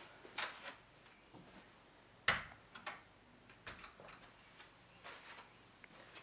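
A few soft footsteps and knocks in a small room, with a sharper knock about two seconds in, the loudest sound, as a room door shuts.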